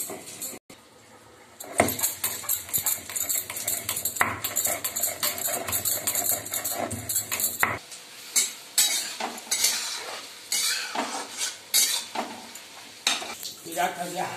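Metal spoon stirring cut potatoes in a steel kadhai, with quick repeated clinks and scrapes against the pan.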